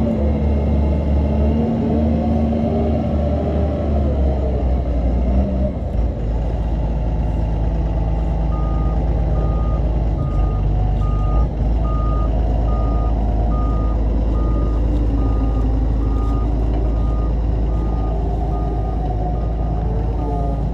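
Doosan DX140 excavator's diesel engine running under load as it travels on its tracks during a slope-climbing test of its newly adjusted hydraulic pump. From about eight seconds in, its travel alarm beeps steadily, about one and a half beeps a second.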